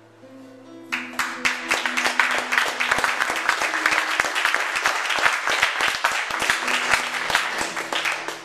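Audience applauding, starting about a second in, over an acoustic guitar still sounding a few held notes.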